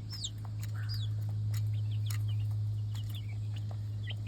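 Young chickens, about two months old, peeping: repeated short, high peeps that fall in pitch, with a few light clicks, over a steady low hum.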